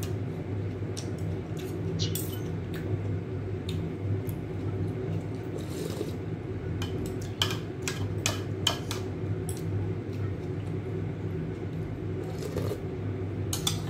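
Someone eating noodle soup: slurping and mouth sounds with steel chopsticks and a steel spoon clicking against a ceramic bowl, the clicks coming in little clusters. A steady low hum runs underneath.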